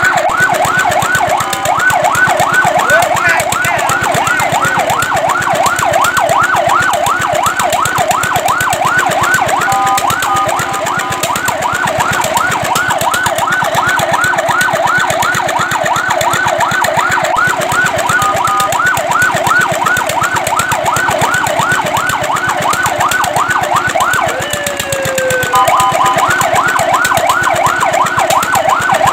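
Fire truck siren on a fast yelp, sweeping up and down in pitch several times a second. It is broken a few times by a brief steady held tone, and once near the end by a slow falling glide.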